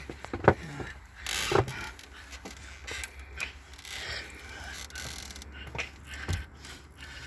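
A gloved hand working among rubber hoses, plastic clips and parts in a pickup's engine bay, reaching down to get at the oil filter. Scattered clicks and knocks, with a sharp click about half a second in and a short scraping rush a little after a second.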